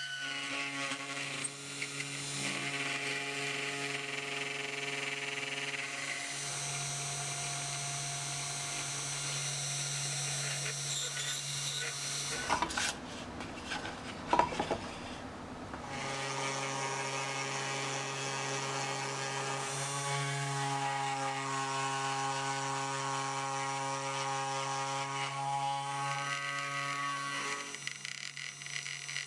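3018 PRO CNC router milling a linden wood block: a steady spindle-motor whine with motor tones that shift in pitch as the cutter moves. About halfway there is a few-second stretch of noise and clicks.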